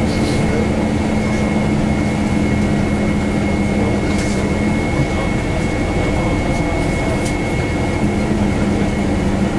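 Bus running along the road, heard from inside the passenger cabin: a steady engine and road rumble with a hum that fades out about five seconds in and comes back near the end.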